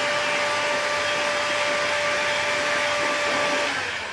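Electric heat gun running, a steady fan rush with a whine over it; it is switched off near the end and winds down.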